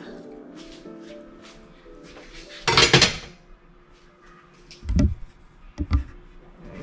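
Knife and fork clinking and clattering against a plastic cutting board. The loudest clatter comes about three seconds in, followed by two short dull knocks near the end.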